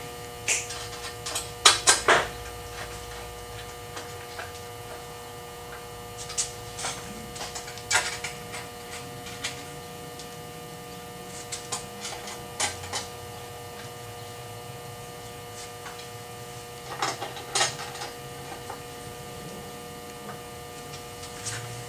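Short metallic clicks and clinks of hardware being tightened on a CNC router's aluminium gantry and linear rail, in small clusters every few seconds, over a steady electrical mains hum.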